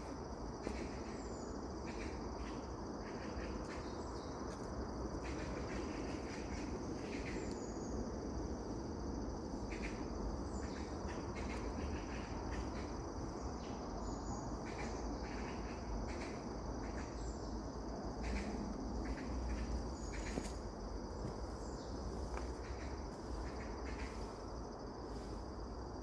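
Steady, unbroken high-pitched trilling of insects in a bamboo grove, over a low rumble. Scattered soft rustles and crackles and a few short, high chirps come and go.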